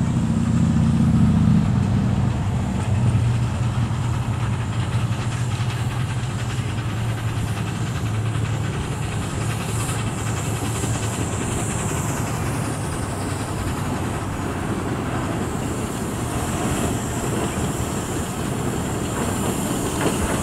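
Small narrow-gauge steam locomotive working hard up a grade with its train, exhaust chuffing and wheels running on the rails. A low hum fades away over the first few seconds.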